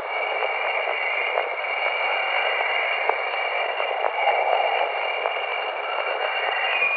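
Voyager plasma-wave recording of Jupiter's chorus emissions, played back as sound: a steady radio-like hiss with a few steady high tones running through it and occasional faint clicks.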